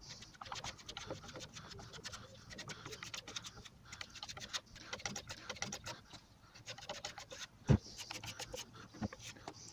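Hand sanding block rubbing over a sprayed, painted plywood panel in short, irregular scratchy strokes, sanding out fish eyes in the finish. A sharp knock comes about three-quarters of the way through, with a lighter one near the end.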